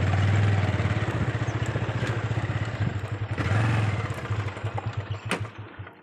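Motorcycle engine running while riding along a rough farm track, swelling briefly about three and a half seconds in, then easing off and dying away near the end. A sharp click comes just after five seconds.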